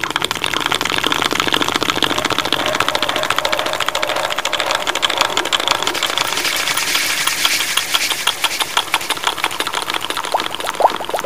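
Rapid, steady tapping right up against the microphone, many taps a second, with a faint ringing tone running through it; a few louder, sharper taps come near the end.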